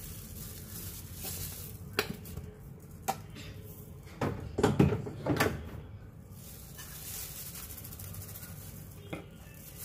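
Metal spoons clinking and scraping against a stainless steel mixing bowl as sugar is spooned onto noodles and stirred in: a few sharp single clicks, with a cluster of louder clatter about four to five and a half seconds in.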